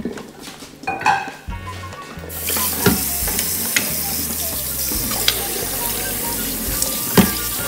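Tap water running onto cooked green mussels in a stainless steel colander, starting about two seconds in as a steady hiss, with occasional sharp clacks of shells knocking together and against the colander as a hand stirs them.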